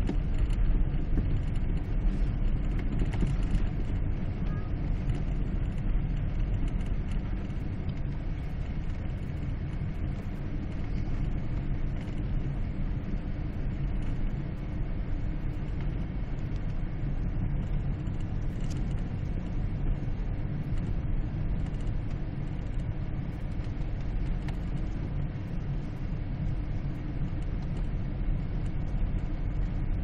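Steady low rumble of a car's engine and tyres heard from inside the cabin as it drives slowly along a snow-covered road.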